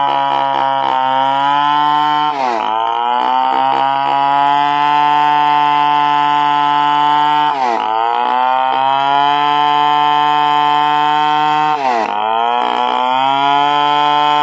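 Stihl 070 two-stroke chainsaw running at high revs while sawing timber. Its pitch drops sharply and recovers three times: a couple of seconds in, about halfway, and near the end.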